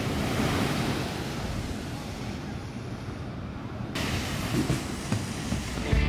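Sea waves breaking on a sandy beach: a steady rush of surf that ebbs, then swells up again suddenly about four seconds in.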